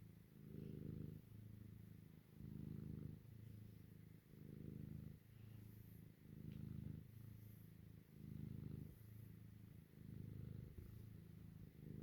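Domestic cat purring steadily, a low rumble that swells and eases with each breath, about once every two seconds.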